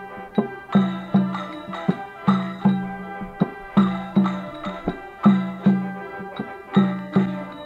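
Instrumental background music with a steady beat: pitched notes and percussion repeating in an even pattern.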